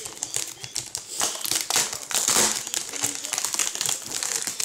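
Packaging being handled during an unboxing: a continuous, irregular crinkling and rustling, loudest about halfway through.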